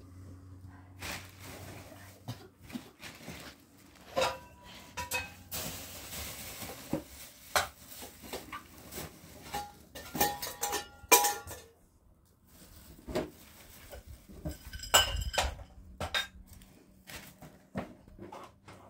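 Dishes and utensils clinking and knocking against each other as they are handled in a plastic bag, some clinks ringing briefly, with rustling of the plastic in between.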